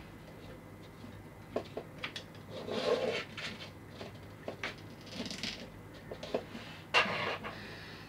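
Small plastic figure parts clicking and rubbing as they are handled and pulled off, with a few light taps as pieces are set down on a table. A brief rustle about three seconds in and one sharper click near the end.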